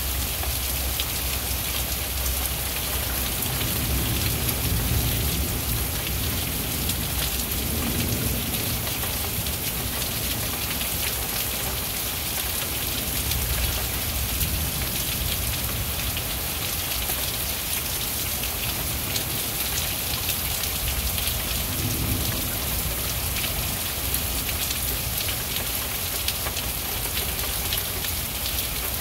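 Steady rain falling, with low rumbles of thunder a few seconds in and again past the twenty-second mark.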